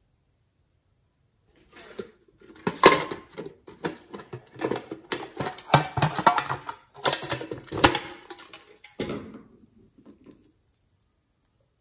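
A small green tin case being handled and opened by hand: a run of irregular clicks, taps and rattles as its lid and the plastic pieces inside knock together, loudest at about three and eight seconds in. The sounds start about two seconds in and die away near the end.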